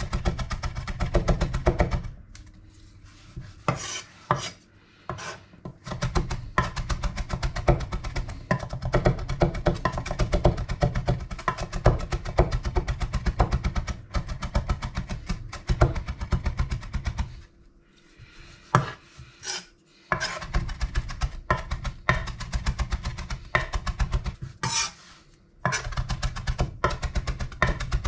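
Chef's knife rapidly chopping fresh greens on a cutting board, many quick strikes a second, stopping briefly a few times before starting again.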